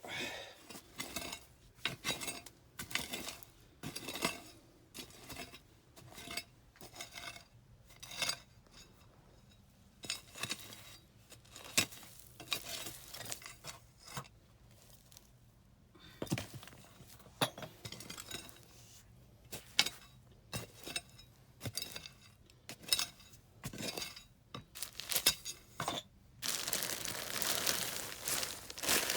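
Digging by hand through loose backfill and rubble: irregular scrapes, knocks and clinks of a hand tool against buried odds and ends. Near the end a plastic bag starts crinkling steadily as it is pulled out of the soil.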